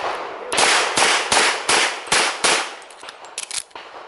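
Semi-automatic pistol fired rapidly, about six shots at roughly half-second spacing, each with a short ring-out. A pause follows near the end.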